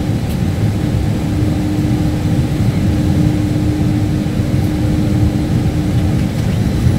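Steady low rumble inside an Airbus A318 cockpit with the engines running, plus a steady hum that stops near the end.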